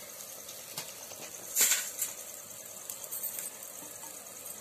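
Pot of sweet potatoes boiling in water, with a steady hiss and light bubbling and clicks. There is a short, louder noise about one and a half seconds in.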